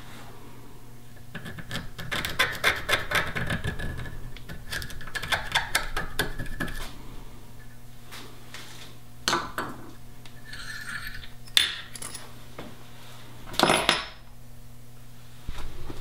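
Small metal tools scraping and clinking on a metal shifter part held in a bench vise: a run of quick, ringing metallic scrapes and ticks for several seconds, then a few separate sharp clicks and clacks.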